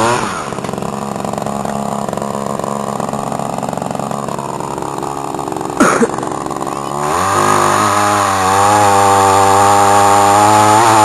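Echo PPT2400 pole pruner's 25cc two-stroke engine drops from high revs to idle at the start, idles steadily with a single sharp click about six seconds in, then revs back up about seven seconds in and holds at high revs.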